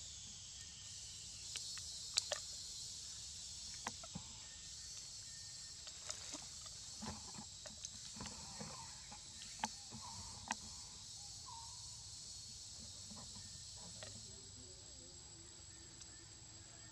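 Steady high-pitched drone of forest insects, with scattered soft clicks and rustles and a few faint short chirps in the middle.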